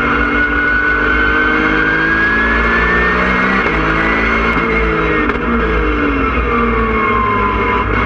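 Porsche 997.1 GT3 Cup car's 3.6-litre flat-six, heard from inside the cockpit, pulling hard with its pitch climbing and a gear change about three and a half seconds in. Over the last few seconds the pitch drops as the car slows, with a high whine rising and falling alongside the engine.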